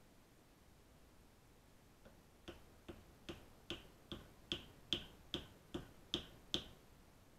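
A small axe tapped down against a wooden block about a dozen times, short sharp knocks about two and a half a second, starting about two seconds in and loudest in the middle.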